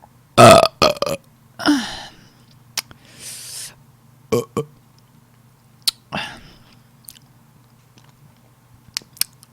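A woman burps loudly about half a second in, then makes a few shorter throaty sounds and mouth clicks.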